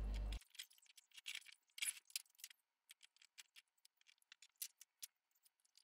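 Faint, scattered small clicks and taps of hand work on a laminated blockboard drawer frame. A steady low background cuts off suddenly just after the start.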